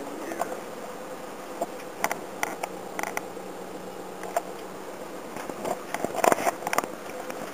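Steady engine and road hum inside a moving minibus, with scattered clicks and rattles, thickest about six seconds in.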